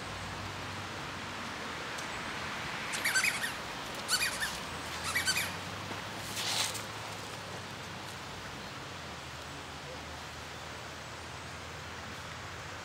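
Four short high-pitched animal calls, about a second apart, over a steady outdoor background.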